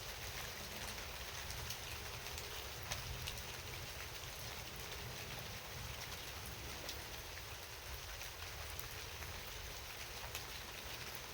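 Steady rainfall: an even hiss with scattered sharper ticks of single drops, over a low steady rumble.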